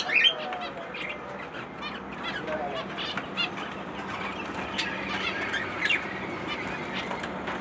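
Small pet parrots, lovebirds and cockatiels, chirping and squawking in their cages, with short calls repeating irregularly throughout.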